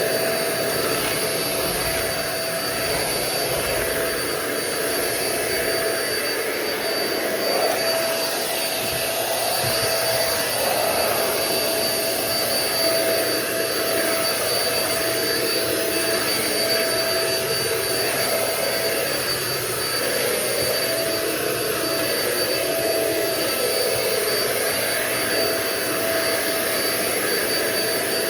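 Euro-Pro Shark EP600 bagless stick vacuum running steadily while vacuuming: a constant rush of air with a steady whine from the motor. The owner says its filter is about half clogged.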